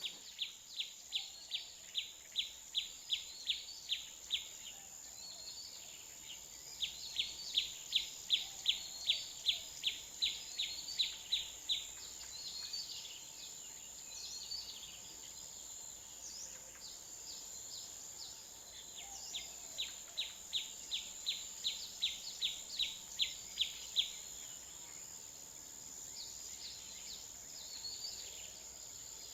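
A bird calling in three runs of sharp repeated notes, about three a second, each run growing louder over several seconds. Under it runs a steady high-pitched whine.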